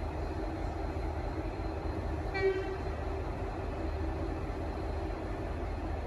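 V/Line N class diesel locomotive's engine running steadily, with one short toot of its Leslie RS5T air horn about two and a half seconds in.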